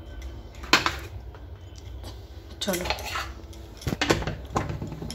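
Metal pots and utensils clinking and knocking as tea is poured out of the pan: a handful of sharp knocks, the loudest about a second in, over a low steady hum.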